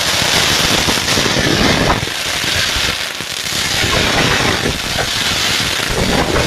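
Firecrackers going off in a dense, continuous crackle of rapid bangs, which starts suddenly and keeps on without a pause.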